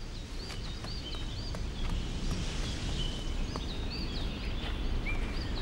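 Small birds chirping, short high rising-and-falling notes repeated in quick runs, over a steady background hiss.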